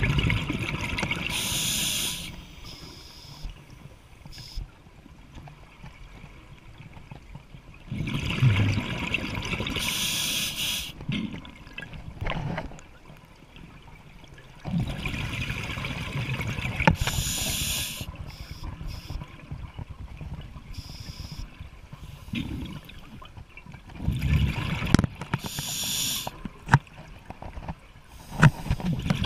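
Scuba diver breathing through a regulator underwater: about four breaths several seconds apart, each a hissing inhale through the regulator and a rumbling gush of exhaled bubbles, with quieter pauses between.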